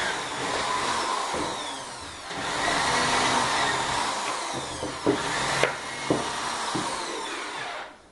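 Power drill running for several seconds, easing off briefly about two seconds in, then running again, with a few sharp clicks near the end before it stops abruptly.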